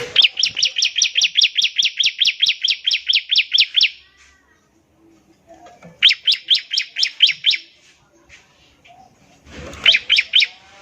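Bar-winged prinia (ciblek) singing its rapid 'ngebren' rattle: fast, sharp, high chirps at about five a second. The first burst lasts about four seconds, a shorter one comes about six seconds in, and a brief one near the end.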